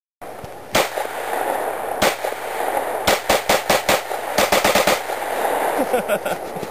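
Glock 10mm pistol firing: two spaced shots, then quick runs of shots at about five a second, with a few fainter reports near the end.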